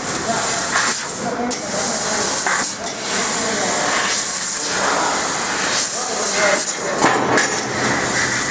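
Fiber laser cutter cutting 1.5 mm stainless steel sheet: a steady hiss of assist gas blowing through the cutting nozzle. It breaks off briefly about three times as the head moves between cuts.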